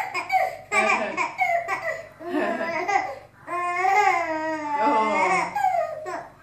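Baby babbling: a run of high-pitched vocal sounds in several stretches, the longest running from the middle almost to the end, made around a feeder teether held in her mouth.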